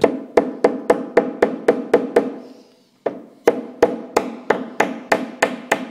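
Hammer tapping dowels into holes in a painted cabinet panel, quick light taps at about four a second, kept light so the painted panel won't crack. The tapping stops for about a second a little past the middle, then carries on at the same pace.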